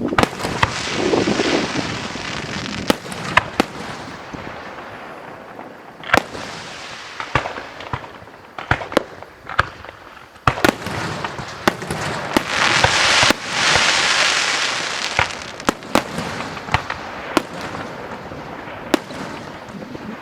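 Fireworks finale: a long run of sharp, irregular bangs from bursting aerial shells, with stretches of crackle and hiss between them. A dense, loud stretch of hiss comes about two-thirds of the way through.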